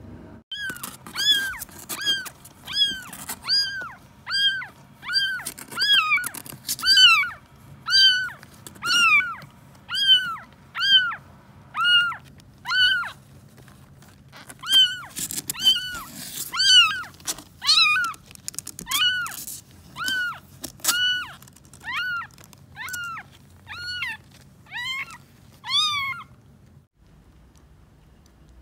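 Young bottle-fed kitten mewing over and over, about one short high cry a second, each rising and falling, then stopping near the end. It is the crying of a nursing kitten that quiets once it is given its milk bottle.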